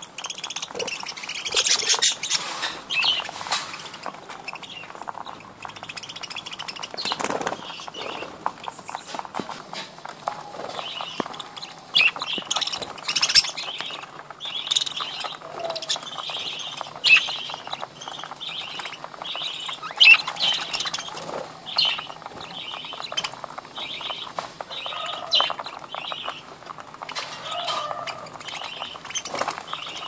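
A flock of budgerigars chirping and chattering continuously in many short, high calls. Wings flap and flutter now and then as birds jostle around a seed dish.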